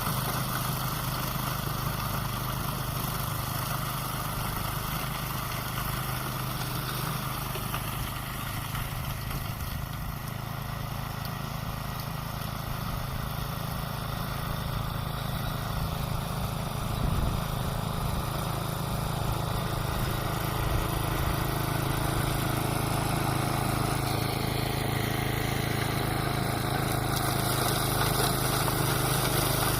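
Toro 828 snowblower's engine running steadily.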